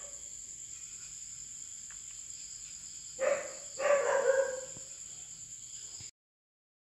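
Yellow Labrador barking twice about three seconds in, the second bark drawn out and falling in pitch, over a steady high chirring of crickets. The sound cuts off suddenly near the end.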